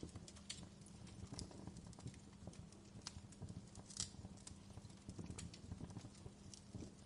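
Wood fire crackling: irregular sharp pops and snaps, some stronger than others, over a low steady rumble.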